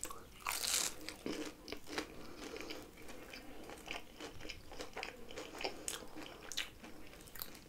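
Close-miked chewing and crunching of a deep-fried kaassoufflé, a crisp Dutch cheese pastry, with a louder crunch about half a second in and small crackles throughout.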